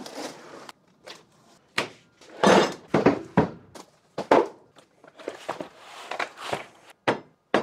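A cardboard box being cut and opened by hand: a utility knife slitting the tape, then the cardboard scraping and tearing as the flaps are pulled back, with a few knocks as the parts inside are handled.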